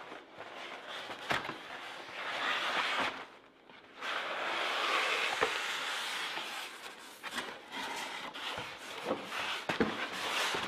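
Cardboard packaging being unpacked: box flaps and an inner box sliding and scraping against each other in two longer stretches, then a styrofoam packing block being pulled out, with a few light knocks and clicks near the end.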